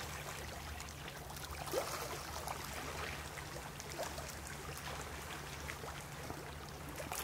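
Small sea waves lapping and trickling among shoreline rocks, with scattered little splashes over a steady low rumble.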